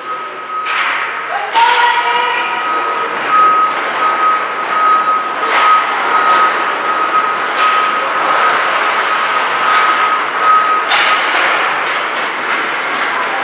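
Ice hockey play in an arena: sharp knocks of sticks and puck at intervals, about five in all, over a steady din of rink noise. A shout rings out about a second and a half in, and a steady high-pitched tone runs under most of it.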